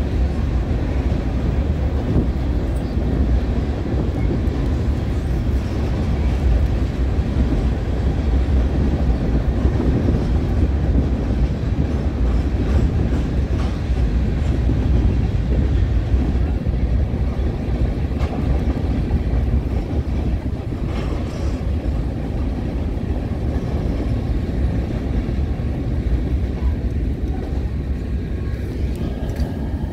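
Freight train of empty covered hopper cars rolling past, a steady rumble of steel wheels on rail. The sound eases in the latter part as the end of the train goes by.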